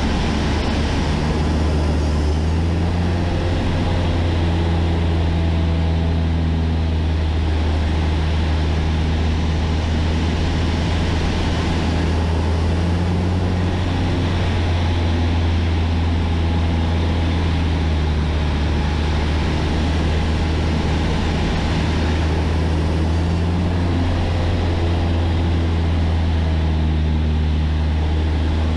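Cessna A152 Aerobat's Lycoming O-235 four-cylinder engine and propeller droning steadily, heard inside the cabin over a hiss of airflow. The pitch of the drone shifts a little up and down as power and airspeed change through the aerobatic rolls.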